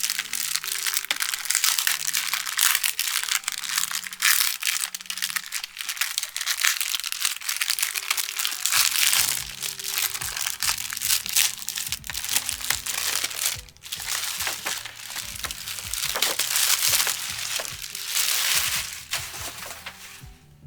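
Packaging crinkling and rustling with many sharp crackles as a boxed anime figure is unpacked, over background music.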